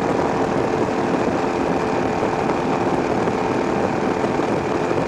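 A steady engine drone: an even noise with several constant humming tones running under it, holding the same level throughout.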